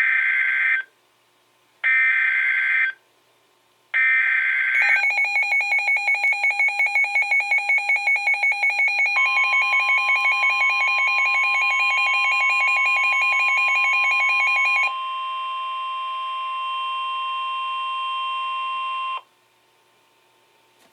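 Emergency Alert System tones: three one-second bursts of digital header data about a second apart, then a rapidly pulsing two-pitch attention signal. About halfway through, a steady tone joins it and holds on after the pulsing stops, then cuts off suddenly.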